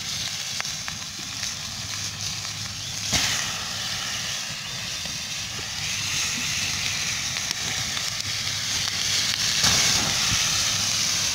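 Pieces of fish frying in hot oil in an iron pan over an open wood fire: a steady sizzle and hiss with the fire crackling under it. There is a sharp pop about three seconds in, and the sizzle grows louder near the end as flames flare over the pan.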